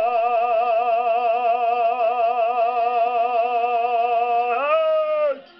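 A man's singing voice holding the long final note of the song with a steady vibrato. About four and a half seconds in it slides up in pitch, holds briefly and stops.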